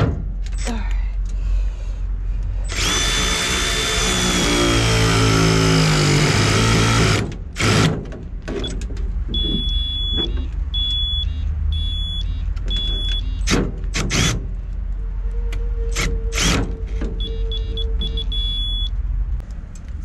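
A digital torque wrench beeping in short, evenly spaced high beeps, a group at about 9 to 13 seconds and another near the end, as it reaches its set torque on the breaker lugs. Before that, a loud noise lasts about four seconds, and a few knocks follow.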